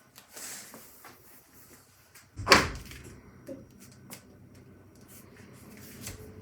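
Small clicks and handling noises, then one loud bang, like a door or cupboard shutting, about two and a half seconds in. A low steady hum runs on after it.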